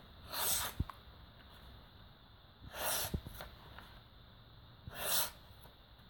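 A folding knife's blade slicing through a sheet of paper three times, about two seconds apart. Each cut is a short tearing hiss, and the first two are followed by a light tap.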